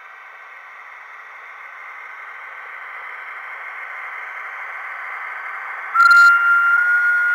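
H0-scale model train running on its track: a steady hiss of wheels and motor that grows slowly louder. About six seconds in, a sudden loud high-pitched tone starts and holds, rising slightly in pitch.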